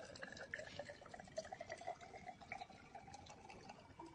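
A thin stream of baijiu trickling and dripping from a bottle into a tall glass graduated cylinder, faint, its pitch climbing slowly as the cylinder fills.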